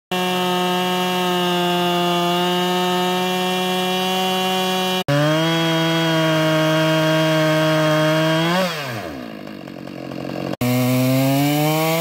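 Husqvarna 572 XP two-stroke chainsaw in a Granberg chainsaw mill, running at full throttle under load while ripping a slab from a big maple log. A little past the middle the pitch flicks up and then falls away as the throttle is let off; after an abrupt break the engine note climbs steadily as it is throttled back up.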